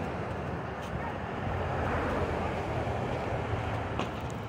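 Wind buffeting the phone's microphone while walking a trail: a steady rushing noise over a low rumble that swells and eases, with a few faint clicks about a second in and near the end.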